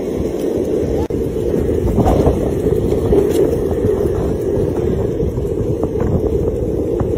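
Steady wind rumble on the microphone as it moves quickly along the road, with a few faint scuffs and ticks.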